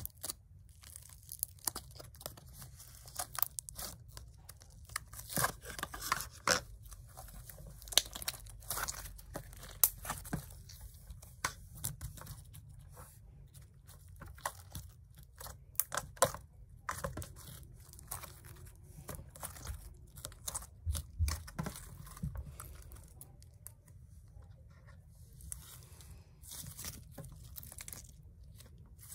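Hands poking, squeezing and stretching slime, giving many irregular sticky clicks and small crackling pops.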